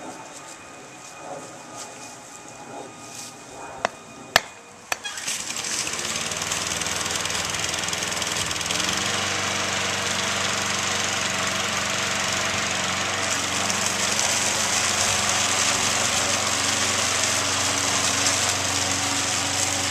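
Two or three sharp clicks about four seconds in, then a Toro walk-behind gas lawn mower's engine running steadily, a little louder from about nine seconds in as it mows.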